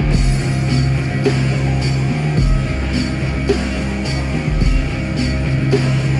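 Recorded music played back over MartinLogan Neolith electrostatic loudspeakers: a steady beat with bright cymbal-like hits about twice a second over sustained bass notes.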